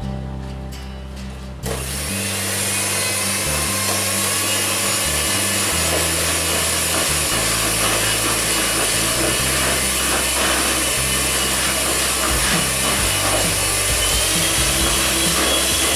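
Handheld electric mixer switched on about two seconds in, then running steadily with a whirring motor whine as its beaters churn a soft butter, sugar and egg batter in a plastic bowl.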